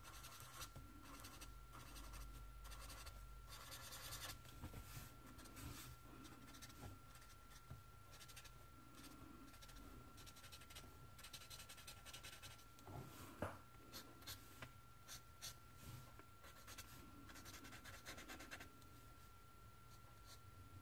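Faint strokes of a Promarker felt-tip marker on paper as the drawing is coloured in, with a single sharper click about two-thirds of the way through.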